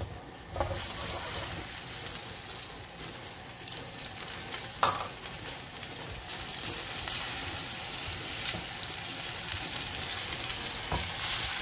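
Pork rib pieces sizzling in a frying pan in a little sauce and hot water. The sizzle starts about half a second in, and a wooden spatula stirring them knocks once against the pan about five seconds in.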